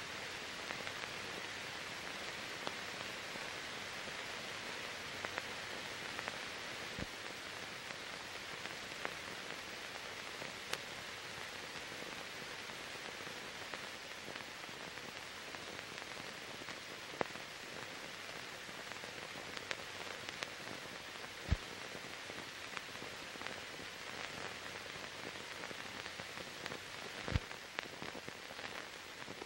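Steady hiss with a few scattered sharp clicks and pops, and no other sound: the noise floor of a silent archive film's soundtrack.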